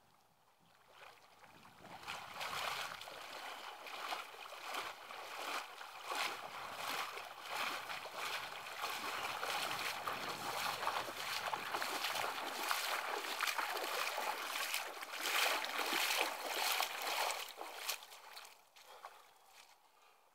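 Water splashing and sloshing as a man swimming in a lake stands up and wades out through shallow water, his legs churning through it in a steady run of uneven splashes. The splashing starts about a second and a half in and dies away a couple of seconds before the end.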